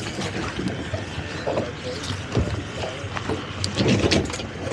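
A tow line being pulled and worked over a towboat's stern, giving scattered knocks and rubbing over a steady noisy background, with a few heavier thumps near the end.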